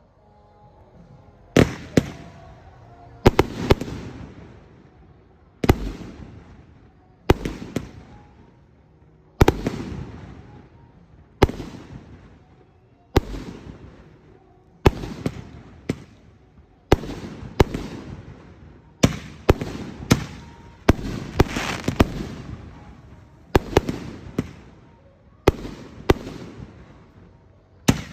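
Fireworks display going off: loud bangs about every one and a half to two seconds, some in quick pairs, each followed by a fading tail. The first bang comes about a second and a half in.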